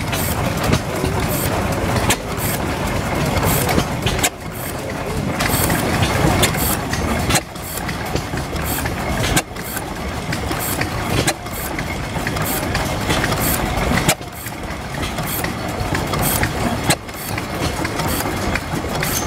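1891 Van Duzen walking-beam gas engine running, a steady mechanical clatter of its valve gear and linkage with a sharper beat roughly every two to three seconds.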